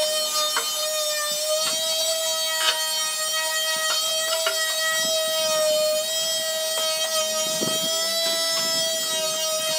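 Small electric sander running with a steady high whine as it is worked over plywood panels, with light clicks from the pad against the wood. Background music plays faintly underneath.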